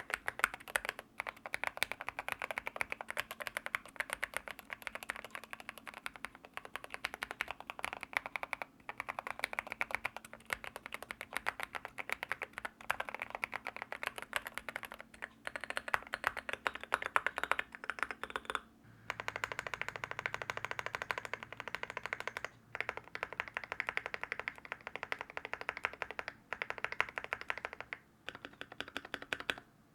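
Fast, continuous typing on a mechanical keyboard fitted with linear switches: a dense run of quick key clacks, broken by a short pause about two-thirds of the way in and again near the end.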